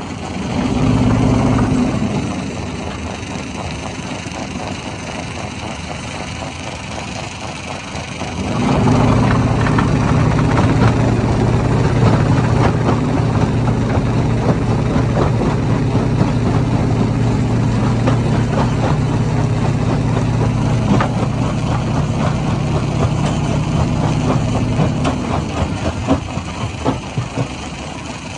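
Hammer stone crusher running: a steady low drone that swells heavily from about nine seconds in and eases off around twenty-five seconds, with rocks knocking and clattering through it.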